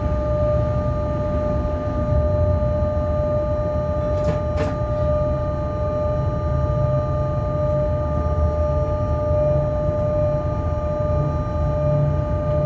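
Cab interior of a moving freight train: a steady low running rumble with a steady high tone that holds the same pitch. Two sharp clicks about four seconds in.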